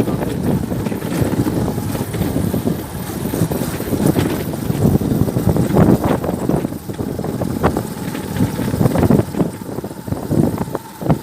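A vehicle on the move, with road and engine rumble and wind buffeting the microphone, and a few short knocks.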